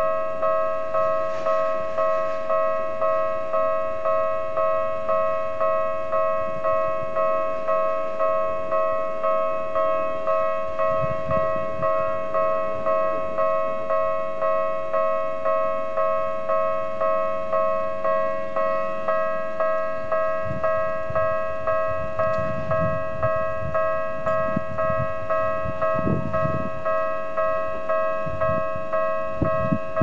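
Japanese railway level-crossing alarm bell ringing in a steady, regular repeating rhythm while the red lamps flash, signalling an approaching train. In the second half a low rumble builds beneath it as the train draws near.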